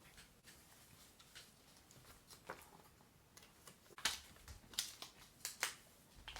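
Faint handling noise: scattered small clicks and rustles, with sharper taps coming more often from about four seconds in.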